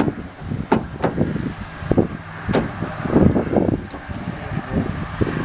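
Hand tools working a bolt loose inside a pickup's door panel: scattered sharp metallic clicks and irregular clatter and rattling over a low rumble.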